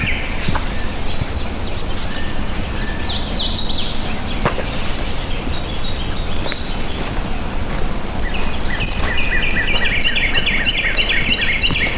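Several songbirds singing over a steady low outdoor rumble. One bird sings quick runs of repeated down-slurred notes in the last few seconds, while higher, thin whistled notes come and go throughout.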